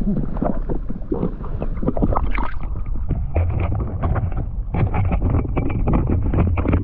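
Water sloshing and rumbling against an action camera's waterproof housing as it comes up from underwater to the surface, with many small clicks and a low rumble that grows stronger partway through.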